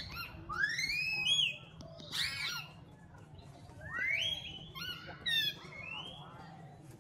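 Monkeys calling: a string of short, high-pitched calls that sweep up and back down in pitch, several overlapping, loudest in the first half, over a steady low hum.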